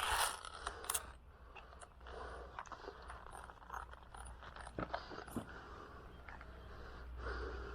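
Faint rustling with scattered light clicks and crunches, the clearest a few sharp clicks about five seconds in.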